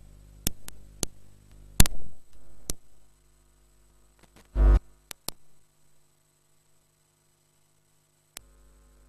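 Scattered sharp clicks and knocks, with one heavy low thump about four and a half seconds in, over a steady electrical hum from the sound system; the hum cuts out after about three seconds and comes back near the end.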